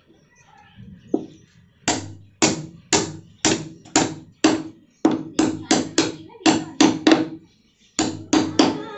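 Steel hammer striking the end of a new wooden handle, driving it down through the eye of a small one-pound sledgehammer head: about sixteen sharp knocks, each with a short ring, coming about two a second, with a brief pause before the last three.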